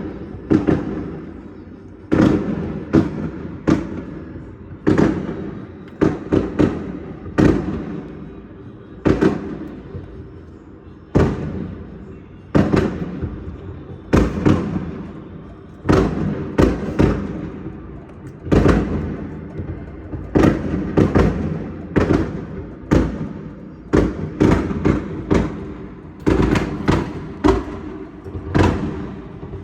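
Fireworks going off in a steady, irregular barrage: dozens of sharp bangs, often two or three in quick succession, each trailing off in an echo.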